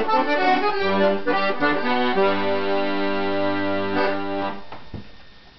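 Two accordions playing a duet, ending on a long held final chord that stops about four and a half seconds in.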